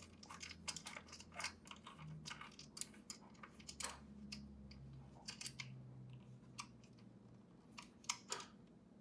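Faint, irregular small clicks and taps as a plastic-bodied field monitor is handled and its rotatable shoe mount is screwed into the socket on its edge.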